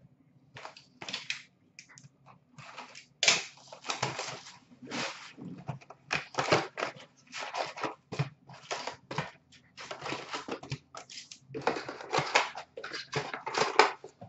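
A cardboard box of sealed trading-card packs being torn open and its packs pulled out and handled: a run of irregular rustling, crinkling and tearing noises.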